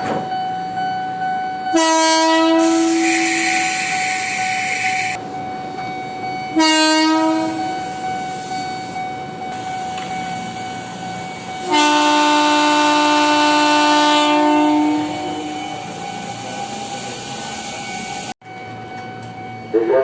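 Horn of an Indonesian KRL Commuterline electric train, sounded three times: a short blast, another a few seconds later, then a longer two-tone blast of about three seconds. A steady high tone runs under the horns, and the sound cuts off abruptly near the end.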